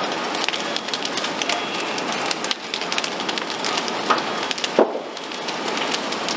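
Structure fire burning hard: a steady rush of flames with dense crackling and snapping from the burning balcony and doorway. One sharper pop stands out about three-quarters of the way through.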